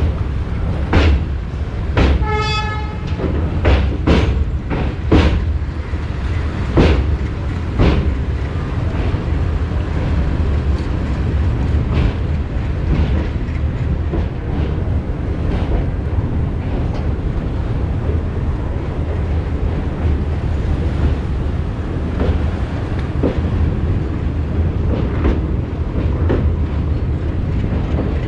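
Diesel-hauled passenger train running, heard from on board: a steady low rumble with the wheels clacking over rail joints. A single short train horn blast sounds about two seconds in.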